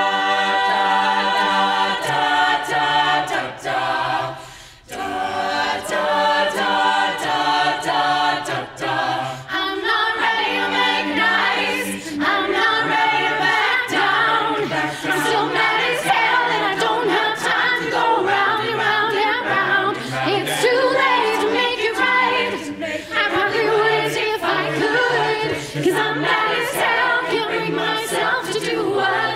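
Mixed-voice a cappella group singing in close harmony behind a female lead singer, with no instruments. The singing breaks off briefly about five seconds in, then comes back fuller.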